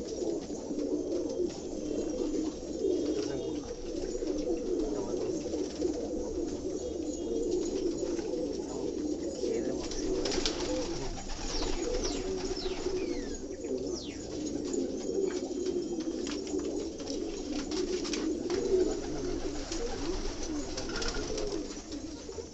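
A large flock of domestic pigeons cooing continuously, many birds overlapping into a steady low murmur, with brief sharp higher sounds now and then.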